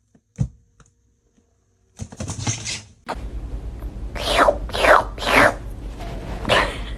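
Cat meowing: four short cries, each falling in pitch, in the second half, over a steady low hum.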